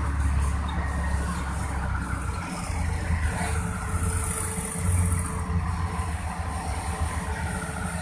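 Heavy diesel machinery running steadily, the engine swelling under load about two and a half and five seconds in, with a brief hiss around the middle.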